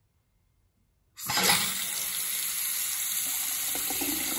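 Water running from a newly installed bathroom faucet into the sink, a steady stream that starts about a second in after a brief silence. It is the new faucet's first test after the supply lines were reconnected.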